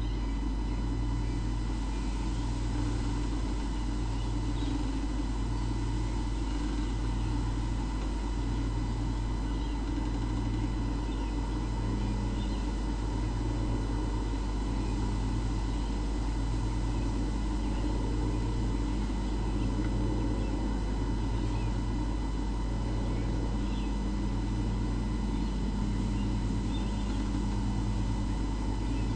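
Steady low hum with a throb pulsing about every second and a half, over faint steady high whines.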